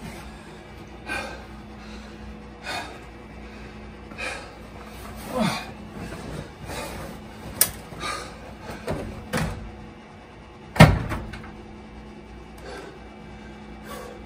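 Clothes being handled at a front-loading washer and dryer: scattered knocks and clunks against the machines, with one loud bang about eleven seconds in.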